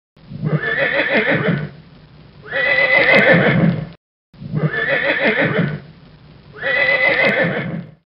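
A horse neighing, the same short recording played twice with a brief gap; each time it is two loud calls with a quieter breathy stretch between them.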